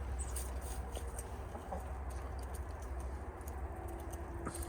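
Backyard hens clucking quietly, a few soft scattered calls, over a steady low rumble of wind on the microphone.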